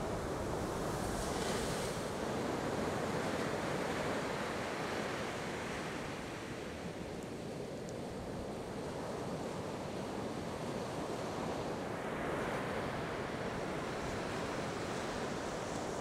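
Ocean surf washing on a beach at night: a steady rushing wash that swells and eases over several seconds, dipping for a few seconds around the middle.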